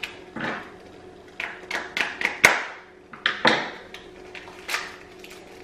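Paper cupcake liners being peeled apart from a stack by hand: about ten short, crisp paper rustles, the loudest about two and a half seconds in.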